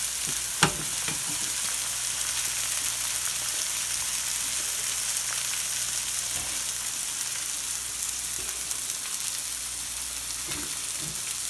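Spice-coated fish fillets frying in oil and butter in cast iron skillets: a steady sizzle as they blacken, with one sharp click about half a second in.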